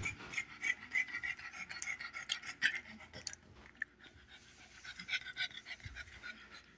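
A dog panting in short, quick breaths, easing off briefly midway.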